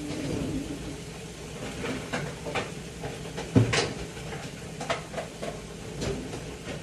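Kitchen handling noise: a series of separate knocks and clicks from containers and utensils being handled while food is dished up, the loudest about three and a half seconds in, over a steady low hum.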